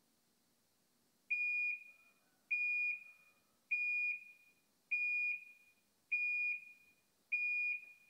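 Panasonic fully automatic top-load washing machine's end-of-cycle signal: six short beeps of one high tone, a little over a second apart, signalling that the wash has finished.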